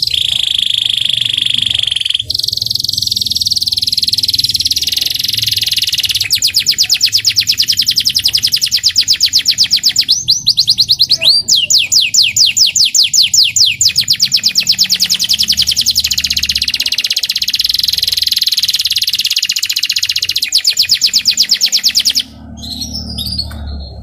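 Young local canary singing loudly in one long unbroken song: a held high whistle at the start, then a very rapid trill of fast-repeated notes, the rolling song that keepers call riwikan. About ten seconds in, a few rising notes briefly break the trill before it resumes, and the song stops about two seconds before the end.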